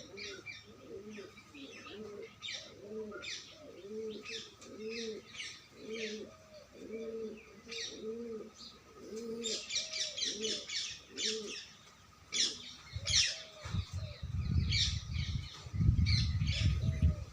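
Birds calling: a low, hollow cooing note repeated about twice a second, with higher chirps from other birds over it. The repeated calls stop after about twelve seconds, and a loud low rumble takes over near the end.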